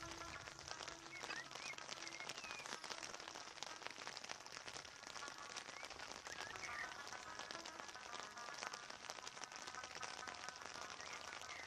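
Steady rain, a dense patter of drops, with a few faint short chirping calls over it.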